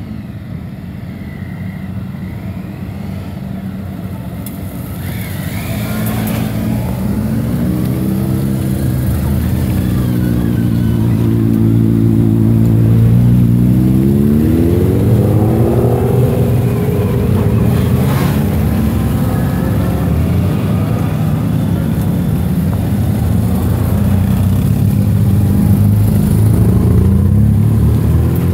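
A column of motorcycles pulling away one after another on a wet road, engines revving up as each rider accelerates past. The sound builds over the first ten seconds or so as the bikes draw close, then stays loud.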